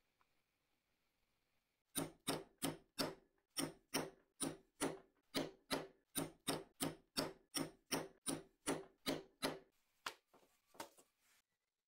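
Four-prong stitching chisel struck repeatedly with a mallet, punching a row of stitching holes through a strip of leather on a punching board: sharp, even strikes about three a second, then a couple of lighter taps near the end.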